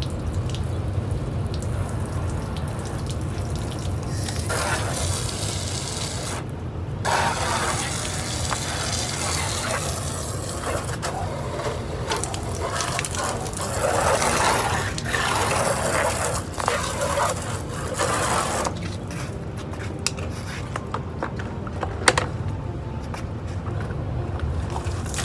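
Water from a garden hose spray nozzle hitting a pickup truck's body and splashing down its side. It starts about four seconds in, breaks off briefly, then runs until about eighteen seconds in. After that the sound is quieter, with a few light clicks and one sharp knock, over a low steady rumble.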